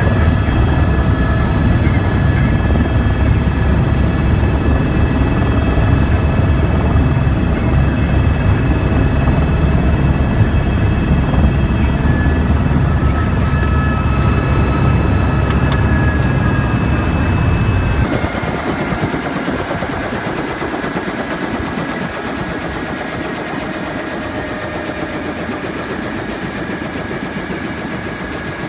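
Helicopter running, with a dense low rotor beat under a steady whine. About two-thirds of the way through, the low beat drops away abruptly, leaving a higher hiss and whine that slowly fades.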